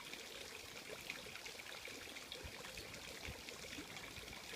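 Garden fountain trickling and splashing steadily, faint.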